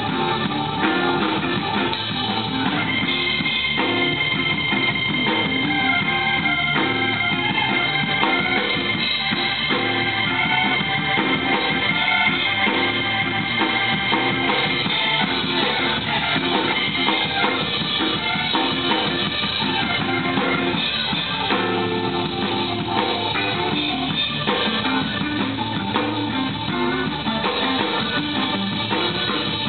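Live blues-rock band playing: drum kit, electric guitar and keyboards, with a long held high note from about three seconds in until about fifteen.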